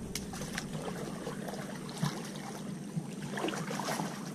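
Kayak paddling: the paddle dipping and splashing in the water with running drips, and a few short clicks and knocks.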